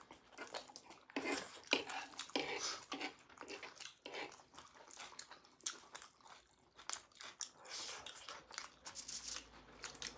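Close-miked chewing and biting of sausage chow mein: irregular wet, crunchy mouth sounds.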